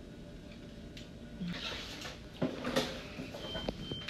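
Light clicks and rustling from hands handling papers and small equipment, with a short, steady high beep near the end.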